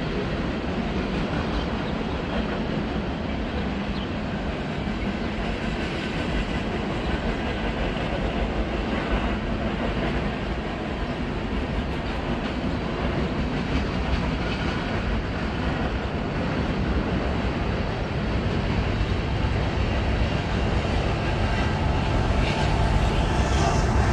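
Freight train cars rolling past: a steady rumble and rattle of steel wheels on the rails. Near the end a diesel locomotive's engine comes in and the sound grows louder and deeper.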